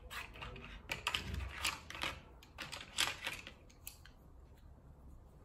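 Coloured pencils clicking and clacking against one another as a handful is picked out of a tray and gathered in the hand: a string of irregular light clacks that thins out after about four seconds.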